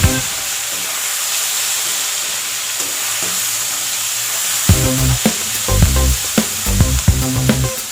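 Food sizzling in hot oil as it is stir-fried in a pan, a steady hiss, with background music coming in about two-thirds of the way through.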